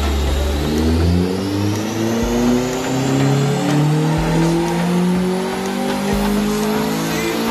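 Honda Civic FN2 Mugen Type R's four-cylinder engine pulling hard on a rolling-road dyno during a tuning run, its pitch rising steadily as the revs climb.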